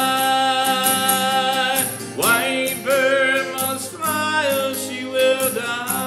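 A man singing long held notes that slide in pitch, over a strummed acoustic guitar.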